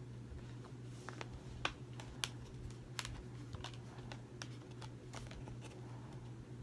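Irregular light clicks and taps of a movie steelbook and its discs being handled, over a steady low hum.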